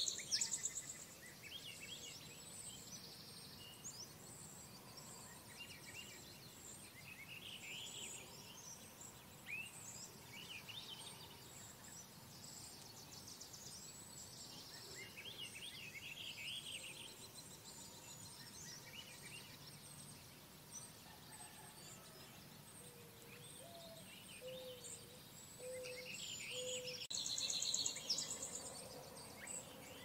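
Songbirds singing, with overlapping chirps and short whistled phrases, and a loud rapid trill right at the start and again a couple of seconds before the end.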